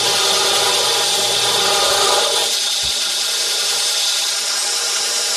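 Ameribrade 2x72 belt sander running with a metal tab ground against the abrasive belt, a loud steady grinding hiss. The grinding eases about two and a half seconds in, and there is a brief low thump near three seconds in.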